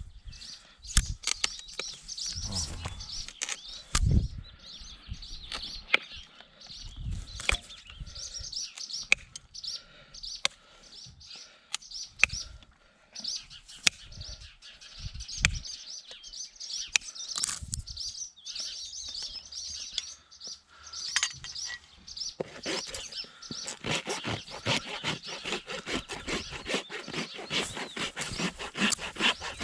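Small birds chirping. Scattered sharp clicks and knocks run under them, and about three quarters of the way in a dense run of rapid scraping strokes sets in.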